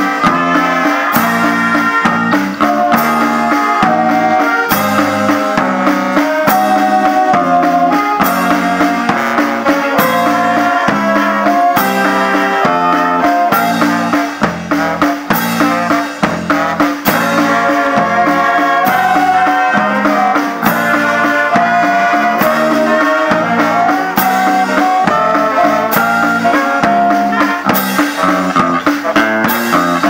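Wind band of saxophones and trombone with snare drum, bass drum and electric bass guitar playing an upbeat piece with a steady beat and a moving bass line.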